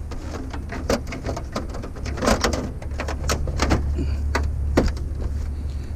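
A CRT television's plastic back case being fitted back onto the set: a run of irregular clicks, knocks and rattles, over a steady low rumble.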